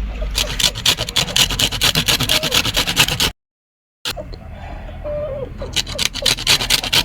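Lemon rind rasped against a hand grater in quick, even back-and-forth strokes, taking off only the outer zest. The strokes break off completely for under a second in the middle, then resume.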